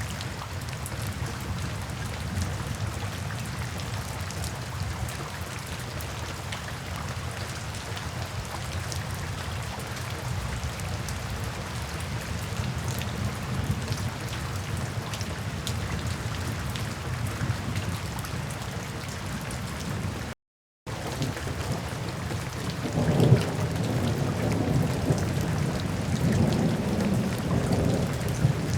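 Steady rain falling, cut off by a brief dropout to silence about two-thirds through. A few seconds later thunder rumbles low and rolls on, louder, to the end.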